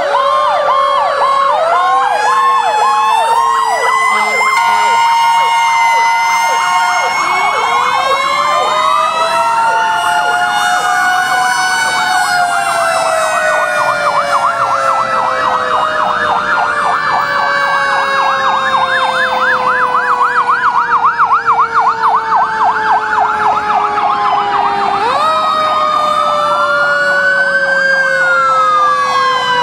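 Several fire trucks' sirens sounding at once and overlapping: electronic wail and fast yelp tones, with a mechanical siren spinning up about 7 seconds in and long, slowly falling winding-down tones. The sirens keep changing as different trucks roll past.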